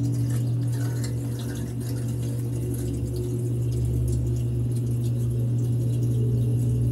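Submersible well pump running down the well casing: a steady low hum with a few faint overtones, with faint scattered ticks over it. The pump has cut in as the system pressure fell to about 40 PSI.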